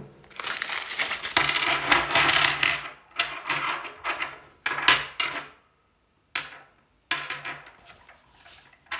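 Small steel screws, T-bolts and clamp pieces spilling out of a plastic bag onto a table, clinking and rattling together for about two and a half seconds. After that, separate clicks as single pieces are picked up and set down again.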